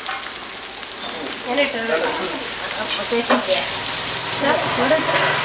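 Oil sizzling steadily in a frying pan, with a couple of sharp clinks from a metal slotted spoon.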